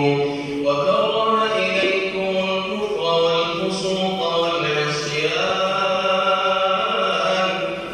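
A man's voice reciting the Quran in melodic tajweed style, drawing out long held notes that step from one pitch to another.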